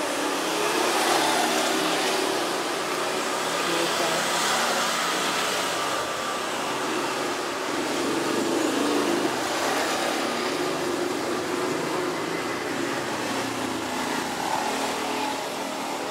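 A steady rushing background noise that swells and eases slowly a few times, with a faint low hum underneath.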